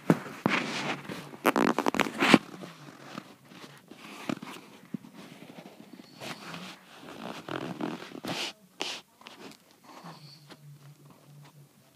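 Chihuahua snoring in its sleep: short raspy snores at uneven intervals, loudest in the first couple of seconds and softer after.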